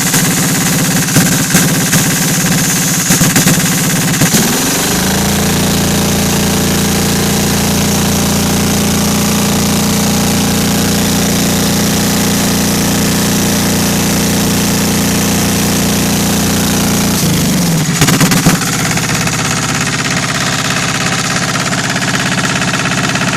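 Kohler KD425-2 two-cylinder air-cooled diesel running loud through its reworked exhaust. It runs choppily at low speed, speeds up about four and a half seconds in and holds a steady higher speed, then drops back to low speed near the three-quarter mark.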